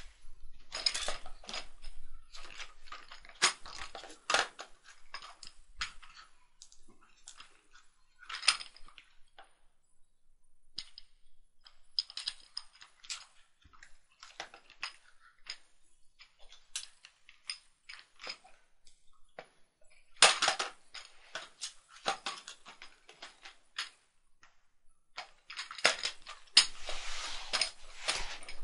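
A baby handling and knocking a plastic toy dump truck and other toys: irregular clicks, knocks and clatters, busiest about twenty seconds in and again near the end.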